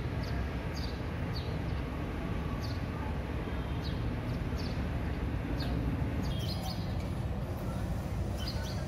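Short, high chirps that slide downward, repeating about once a second over a steady low background rumble.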